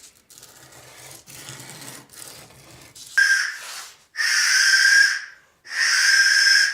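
Homemade wooden dowel whistle blown three times, each a breathy blast of about a second with a steady shrill tone over a lot of rushing air. The maker puts the airiness down to the air hole being cut too flat and too big. Before the blasts come about three seconds of quieter rasping strokes, coarse sandpaper working the dowel.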